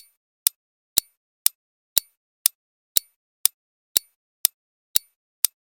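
Countdown timer sound effect ticking evenly, about two sharp ticks a second, against silence.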